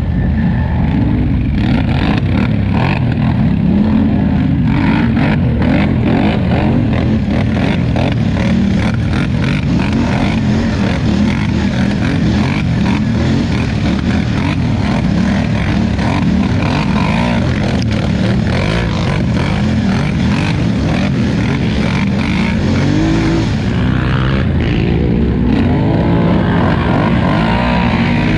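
Polaris Scrambler XP 1000 ATV engine running hard over rough ground, with many knocks and rattles from the machine. Near the end the engine note climbs as it revs up.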